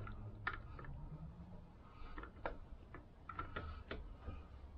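Faint, irregular metallic clicks and ticks from steel gear parts handled inside a Vespa PX engine case, around the kickstart gear and cush drive, each click ringing briefly.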